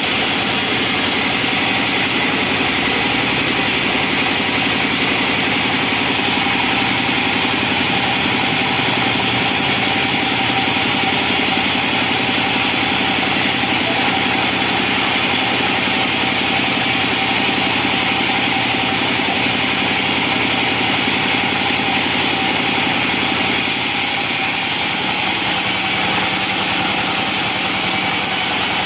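Sawmill engine running steadily at a constant speed, with an even, unbroken drone.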